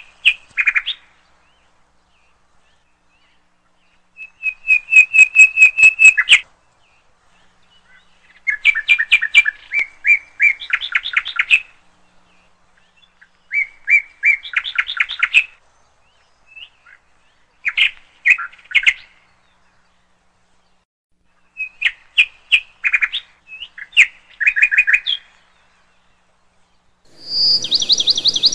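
A small songbird singing in short phrases of rapid high chirps and trills, about seven phrases a few seconds apart, with near silence between them.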